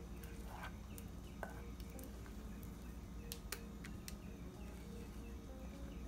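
A metal spoon scraping thick custard mixture from a metal pot into a ceramic bowl, quietly, with a few sharp clicks of the spoon against the pot.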